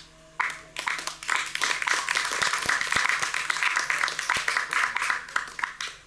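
Audience applauding: many hands clapping, starting about half a second in, swelling, then dying away near the end.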